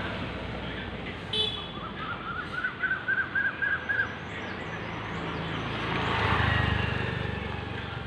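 Street traffic noise. About a second and a half in there is a brief horn toot, then a quick run of high repeated chirps. A vehicle passes close between about six and seven seconds in.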